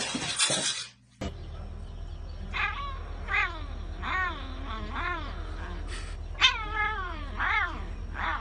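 A tabby cat meowing over and over, about one drawn-out cry a second, each rising then falling in pitch, over a steady low hum. Before that, a loud noisy sound cuts off about a second in.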